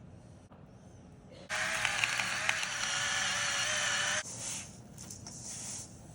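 A small electric kitchen appliance motor runs at steady speed for under three seconds, starting abruptly about a second and a half in and cutting off suddenly.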